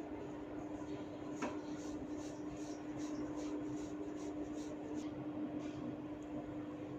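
Hair cracking: a run of small, sharp crackles as strands of scalp hair are tugged. They come about two a second, starting about one and a half seconds in and stopping about five seconds in, over a steady low hum.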